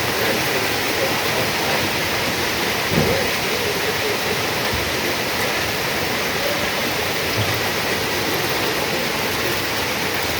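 Steady hiss of heavy thunderstorm rain, with one faint thump about three seconds in.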